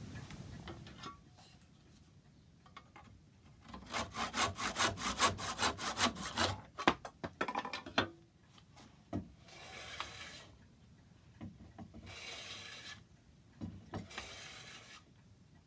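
Oak offcuts being shaped by hand into wedges: a fast run of scraping strokes, about five a second, about four seconds in, then three longer single strokes of about a second each near the end.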